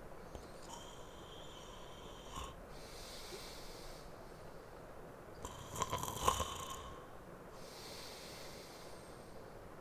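A man snoring in his sleep: two rasping snores on the in-breath, the second louder and rattling, each followed by a soft breath out.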